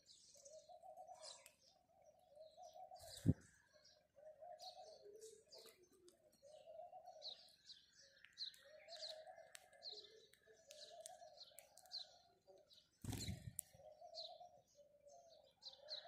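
House sparrows chirping in many short, high calls, over a low coo that repeats about once a second. A sharp knock comes a little over three seconds in, and a low thump near the end.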